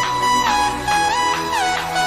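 Background electronic dance music with a steady beat and a gliding synth melody.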